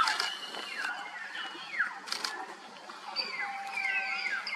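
Common hill mynas calling: a run of clear whistles, many of them sliding sharply downward, mixed with sharp clicking notes, the loudest right at the start.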